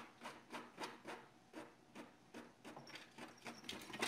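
Canon inkjet printer printing, giving a run of short faint clicks and whirs from its print head and paper feed.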